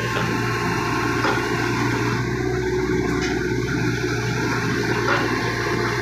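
Hitachi Zaxis 130 excavator's diesel engine running steadily under load, with a constant low hum, as the machine pushes on its boom and crawls its tracks up onto a low-bed trailer.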